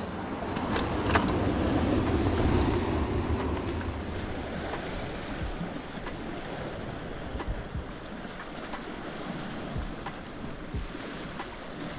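Sea waves washing against a rocky shore, with wind buffeting the microphone that is strongest in the first few seconds, then a steadier, quieter wash broken by a few faint clicks.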